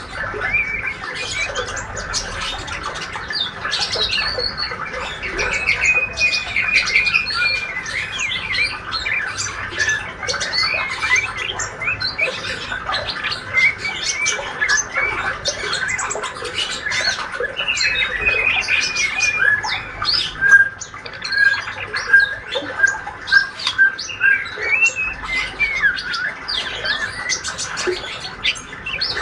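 Young male white-rumped shama twittering continuously in its juvenile practice song (ngriwik): a rambling string of short chirps, trills and squeaky notes, with a run of about eight evenly repeated notes about two-thirds of the way through.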